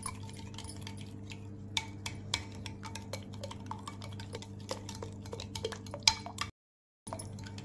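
Metal spoon whisking yogurt in a glass bowl, ticking and clinking against the glass in a quick, irregular run, over a steady low hum. The sound cuts out briefly near the end.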